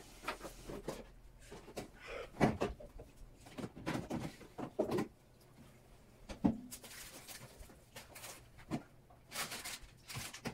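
Kitchen handling noise: a refrigerator door opening, plastic food containers and lids knocking as they are set onto the fridge shelves, and rustling.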